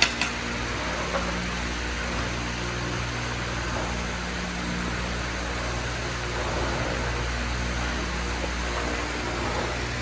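Steady low mechanical hum under an even hiss, like an engine running at idle, with a sharp click right at the start and a softer one about a second in.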